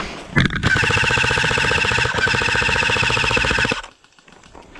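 A loud, pulsing electronic alarm-like tone lasting about three seconds, which cuts off suddenly.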